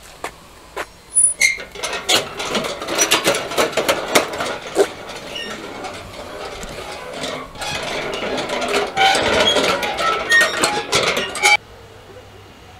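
A row of metal prayer wheels spun one after another by a passing hand, rattling and clinking on their spindles with short metallic rings. It stops suddenly near the end.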